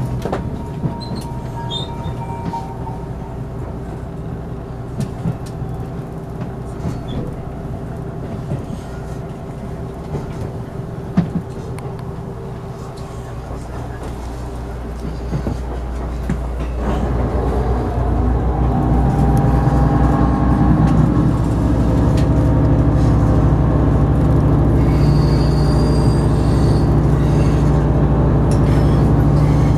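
Diesel generator engine of a JR East HB-E300 series hybrid railcar running, heard from inside the car. About 17 seconds in it grows louder and deeper as it comes under load.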